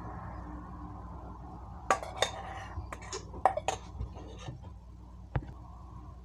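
Kitchenware clinking and knocking: a handful of sharp clinks between about two and four and a half seconds in, and one more near the end, from a glass sauce jar being lifted off the tiled counter and utensils against the metal muffin tin.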